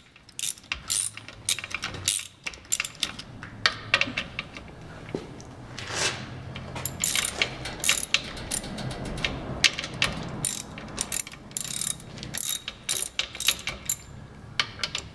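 Hand socket ratchet clicking in quick runs of strokes as the bolts holding the bell housing to a Model A Ford transmission are backed out.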